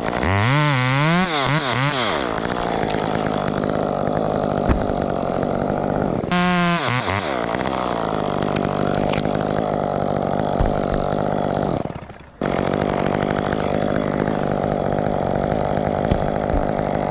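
Two-stroke chainsaw revving up and down a few times, then held at high throttle in a long steady cut, with one short break about twelve seconds in.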